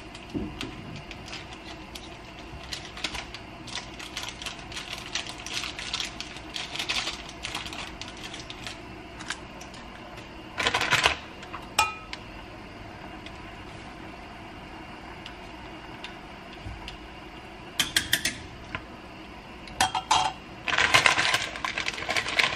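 Plastic and foil seasoning packets crinkling and rustling in the hand as they are shaken out over a pot, with scattered small clicks. Near the end, louder crinkling and tearing as the plastic wrapper of an instant-ramen noodle packet is opened. A steady low hum runs underneath.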